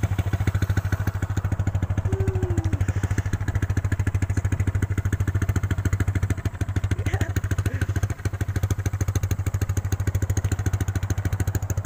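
Motorcycle engine idling steadily, with an even, rapid beat of firing pulses.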